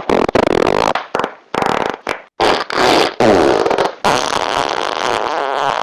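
Farts: a quick string of about six short, rasping ones, then a longer, drawn-out one from about four seconds in.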